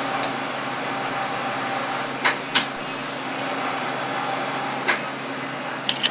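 TIG welding arc with a steady buzzing hiss over a low hum, as the seam around a magazine housing is filled in. A few short sharp clicks come about two seconds in, twice close together, then again near the end.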